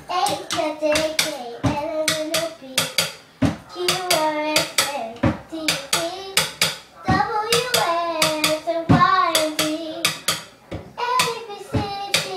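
A young girl singing a tune while a boy drums a beat with drumsticks on the top of a wooden cabinet, the sharp stick hits coming a few times a second under her voice.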